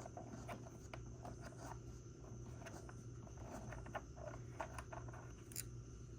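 Faint scattered clicks and light taps over a steady low hum and a thin, steady high-pitched whine, with one sharper tick about five and a half seconds in.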